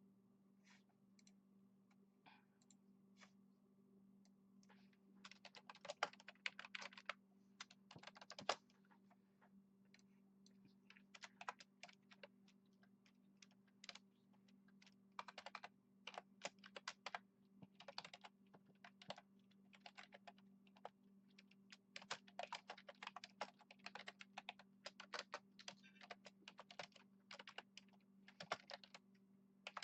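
Typing on a computer keyboard in bursts of rapid keystrokes with short pauses between them, over a faint steady low hum.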